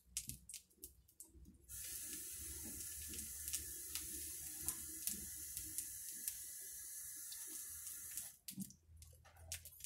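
Kitchen tap turned on and run steadily for about six and a half seconds, then shut off, drawing water, with light clicks and handling knocks before and after.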